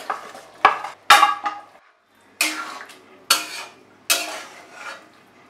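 Metal spatula stirring and scraping through rice, dal and vegetables in an aluminium kadai. It goes in a series of sharp scraping strokes, about six of them, with a brief pause about two seconds in.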